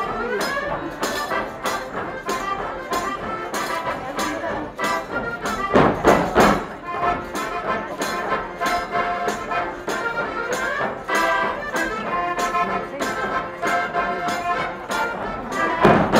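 Lively Kurpie folk dance music with a steady beat. There is a louder burst about six seconds in and again near the end.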